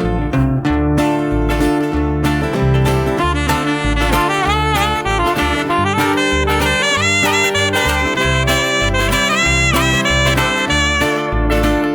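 Instrumental break of a country band song: a lead instrument plays a melody with bending, wavering notes over a walking bass and steady strummed chords. The melody starts about two and a half seconds in.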